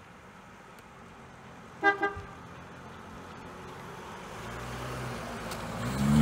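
Two quick toots of a car horn, then a 1964½ Ford Mustang's 170 cubic-inch straight-six engine approaching and passing, growing steadily louder and loudest at the very end as the car goes by.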